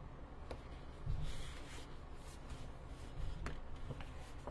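Sheets of 12-by-12 designer series paper being handled and shuffled: soft rustling, with a few light clicks.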